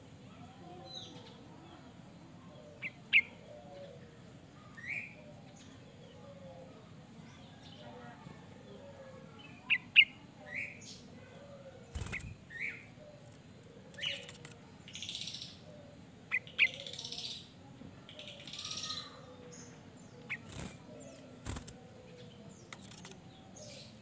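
Sooty-headed bulbul (kutilang) giving short, sharp chirps and call notes at irregular intervals, with a few knocks from the cage, one as it flits across it about halfway through.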